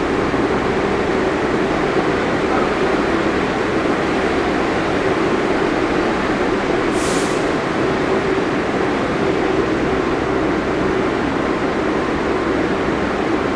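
Steady hum and rumble of a Times Square Shuttle subway train standing at the platform, with a held mid-pitched tone and a brief sharp hiss about seven seconds in.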